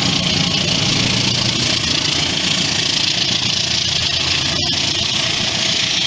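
CC 204 diesel-electric locomotive's engine running loud and steady under power as it pulls a train away from the station.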